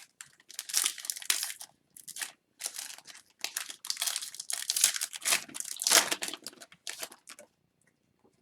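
Crinkling and tearing of a foil hockey card pack wrapper being opened by hand, in irregular rustling bursts that stop about a second before the end.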